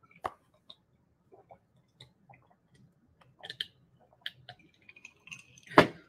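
Drinking juice from a glass mug: swallows and small mouth clicks. Near the end comes one loud knock as the glass mug is set down on the table.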